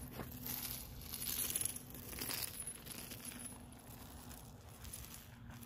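Light, irregular metallic jingling and clinking from a husky's collar and leash hardware as the dog moves about. It is busiest in the first few seconds and thins out after that.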